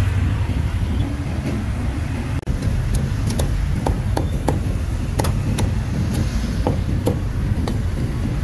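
Cleaver chopping grilled meat on a round chopping block: a sharp knock about twice a second, starting about three seconds in. Underneath is a steady rumble of street traffic and motorbikes.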